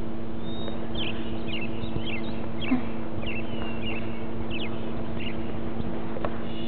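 Birds chirping: a dozen or so short, high, falling chirps, over the steady hum and hiss of an old videotape recording.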